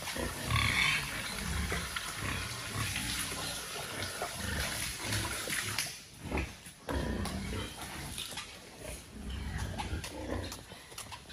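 Pigs grunting in their pens.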